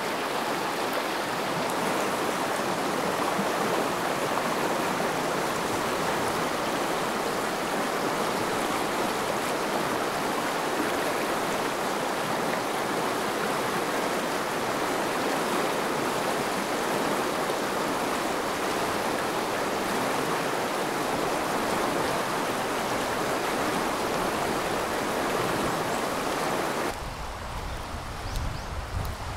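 The shallow Uda River rushing steadily over rocks and stony rapids. Near the end the water sound drops away, with a low rumble of wind on the microphone.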